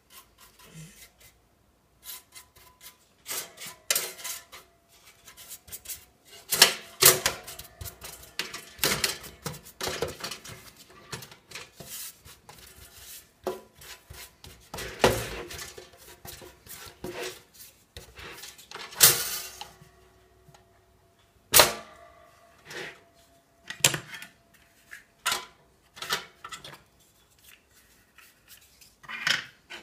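Irregular clicks, taps and brief scraping from brushing crumbs off a stainless-steel toaster with a bristle brush and handling its metal parts. A few sharp knocks stand out.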